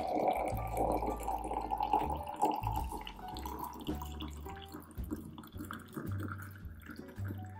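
Hot water poured in a steady stream from a glass kettle into a French press of coffee grounds, splashing as it fills, loudest at first and fading toward the end.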